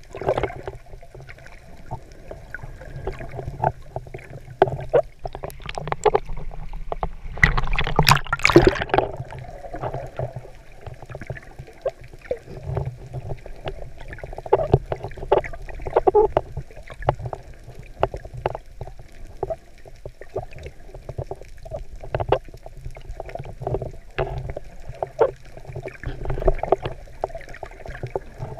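Underwater water noise picked up by an action camera in its housing while snorkeling: a muffled, steady rush with many irregular knocks and taps, and a louder rushing burst about eight seconds in.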